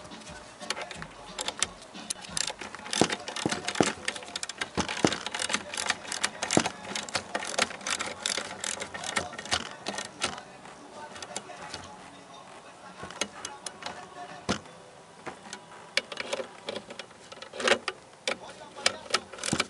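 Irregular clicks and knocks, in quick runs with short pauses, typical of hand tools being worked on an engine.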